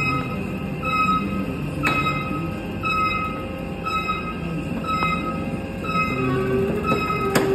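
Steel roller shutter door running in its guides: a rumbling rattle of the slats with a metallic squeak that comes back about once a second. A sharp clack sounds about two seconds in, and a louder one near the end.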